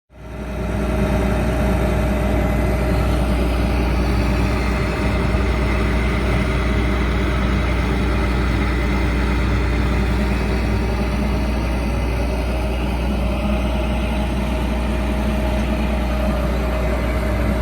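John Deere 9760 STS combine's diesel engine running steadily at road speed, a constant low hum with steady tones above it. It starts abruptly and stays level throughout.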